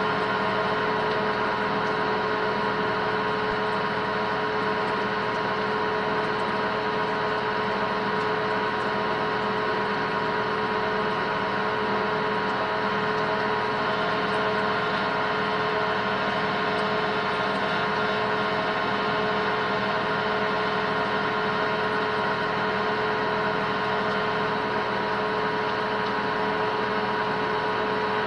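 Metal lathe running steadily, a constant hum with several held tones, while a cobalt drill bit in the tailstock is hand-fed into the spinning workpiece.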